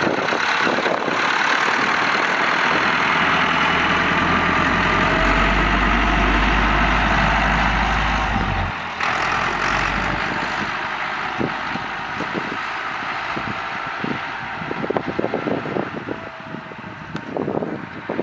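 Volvo BM 2250 farm tractor's diesel engine running as it drives past and away, loud at first and then quieter about nine seconds in, with wind buffeting the microphone in irregular gusts near the end.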